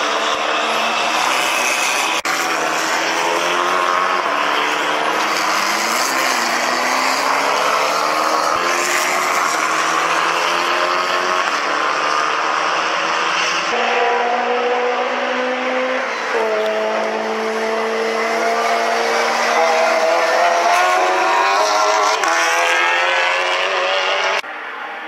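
Formula 4 single-seater race car engines running at speed on a soaked track, the pitch rising and falling with throttle and gear changes, over a steady hiss of rain and tyre spray. The sound changes abruptly several times.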